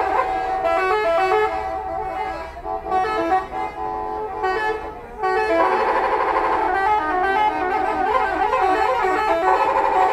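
Bus telolet horns, multi-tone musical air horns, playing quick stepping tunes over one another in a horn battle. The sound thins and dips from about two to five seconds in, then swells into a louder, denser chorus of overlapping notes.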